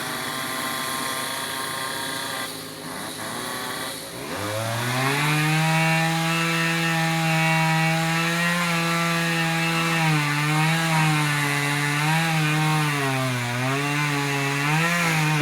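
Chainsaw running hard while cutting wood. About four seconds in, its pitch rises quickly to a steady high note, which wavers up and down over the last few seconds.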